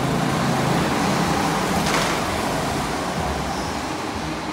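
Go-karts running on an indoor track: a steady engine drone with a brief louder hiss about two seconds in.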